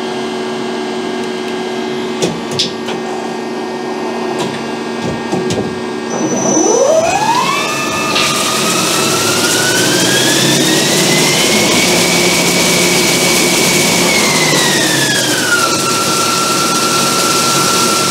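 CNC lathe machining an aluminium air-rifle cylinder end. A steady machine hum runs for the first six seconds. Then the spindle spins up with a rising whine and flood coolant starts spraying with a steady hiss; the whine climbs higher, holds, then drops to a lower steady pitch near the end as the spindle speed changes.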